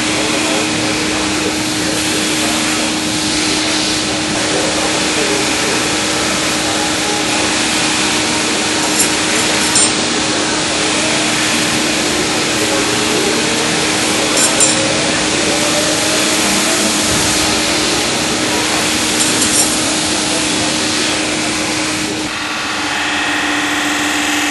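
Knife-blade grinding machines running with a steady hum and hiss, broken by a few short clicks. Near the end the sound changes to a ringing grind as a steel blade is held against a large grinding wheel.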